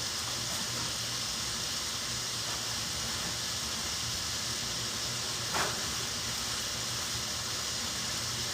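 Vegetables sautéing in butter and avocado oil in a hot skillet, sizzling steadily, with one short knock a little past the middle.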